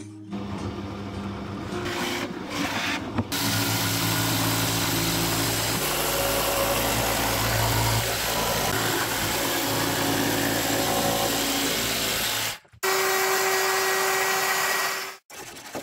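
Power tool running under load, a steady motor whine with harsh noise, heard in a few short spliced clips that start and stop abruptly, with two sharp cut-offs near the end.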